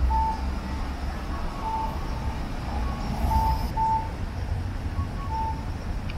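City street traffic with a low rumble of wind on the microphone of a moving bicycle. Five short electronic beeps at one steady pitch sound over it, most about a second and a half apart.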